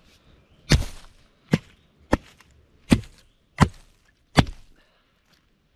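Dry wood being broken up for fire kindling: six sharp, separate wooden cracks spaced a little under a second apart.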